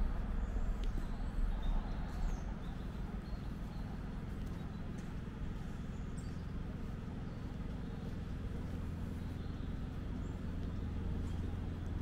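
Small birds chirping faintly now and then over a steady low rumble.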